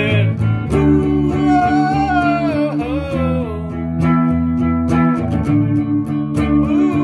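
Electric guitar strumming held chords that change every couple of seconds, with a man's voice singing a wavering, wordless melody line over them about a second in.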